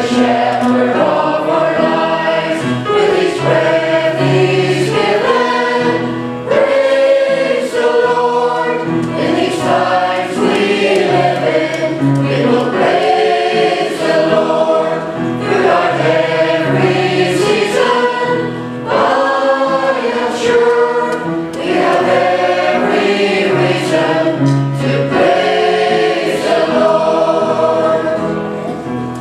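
Church choir singing an anthem in several voice parts.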